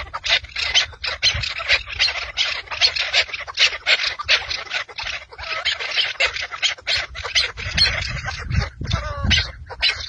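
Chukar partridges calling: a fast, continuous run of harsh clucking notes, about four a second. A low rumble comes in near the end.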